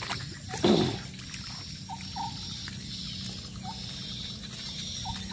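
Steady trickle and run of floodwater over a waterlogged garden, with a few short chirps and one brief louder falling sound just under a second in.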